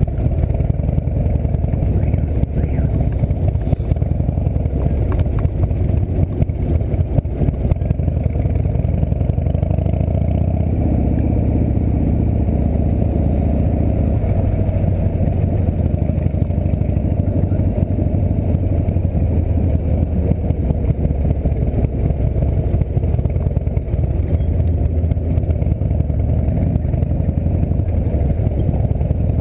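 Harley-Davidson V-twin engine of a chopper trike running steadily while riding in traffic.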